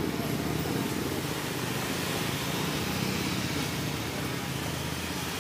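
Steady engine and road noise of a vehicle moving slowly through street traffic, with motorbikes and cars passing close by.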